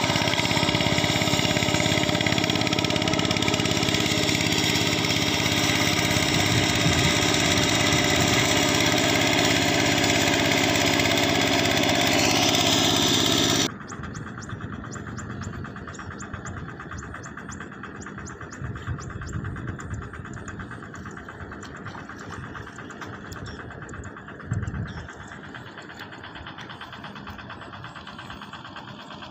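Engine of a walk-behind hand tractor running steadily as it works a flooded rice paddy. About halfway through, the sound cuts off abruptly to a much quieter steady background.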